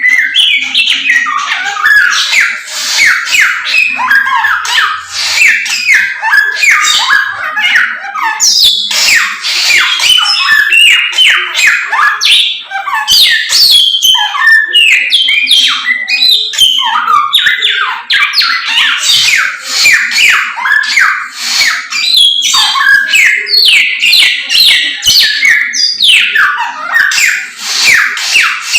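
Samyong songbird singing continuously: a fast, unbroken stream of rapid whistled notes sweeping up and down, the bird in full song.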